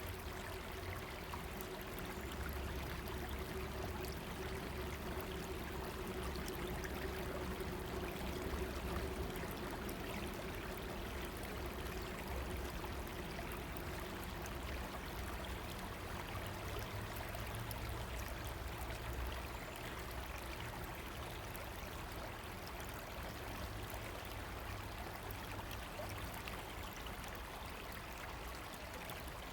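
River water running steadily, an even, unbroken rushing.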